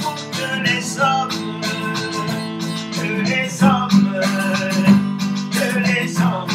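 Acoustic guitar being strummed, with a man singing over it.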